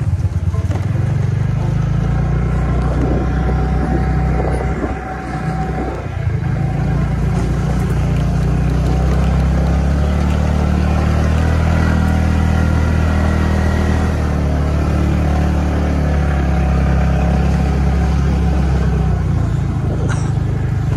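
Engine of a motor vehicle running steadily as it drives slowly over a rough, rock-strewn gravel road, dipping briefly about five seconds in.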